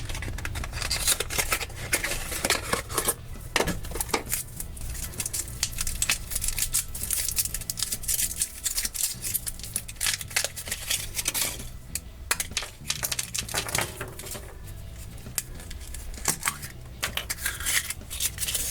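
Foil wrapper of a chocolate surprise egg being peeled off and crinkled, with irregular small clicks and cracks as the egg is broken open and its contents handled.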